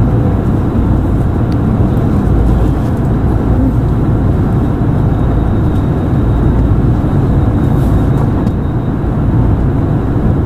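Nissan Diesel PKG-RA274KAN city bus running, a steady low diesel rumble with no change in pace.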